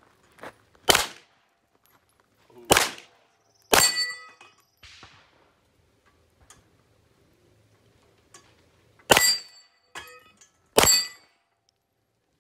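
Pistol shots fired one at a time at steel targets on a Texas star: five loud shots at uneven intervals, several followed by the ring of a struck steel plate.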